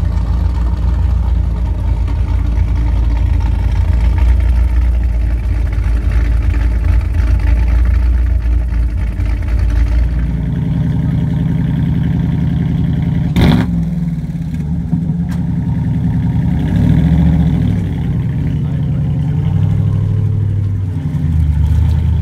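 Dodge Challenger with side-exit exhaust idling with a deep rumble, then revved in a few short blips in the second half, the engine pitch rising and falling each time. One sharp click near the middle.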